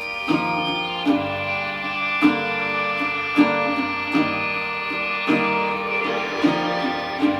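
Recorded music: the abstract opening of an alt-rock song, with plucked string notes struck about once a second over sustained ringing tones.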